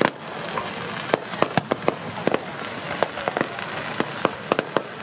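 Aerial fireworks shells bursting overhead: a rapid, irregular run of sharp bangs and cracks, several each second, the loudest right at the start, over a continuous background haze.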